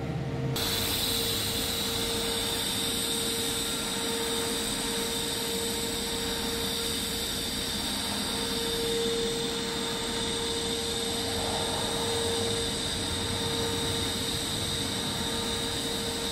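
Argon TIG welding arc joining a pipe: a steady hiss with a faint constant hum that starts abruptly about half a second in as the arc is struck.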